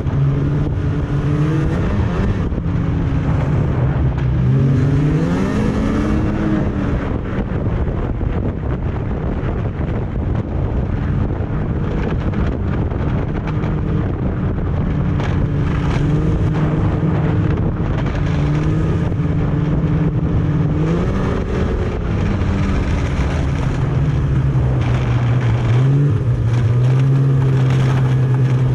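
Snowmobile engine running under way, mostly at a steady pitch, climbing in pitch twice as it speeds up, about five seconds in and again past the middle.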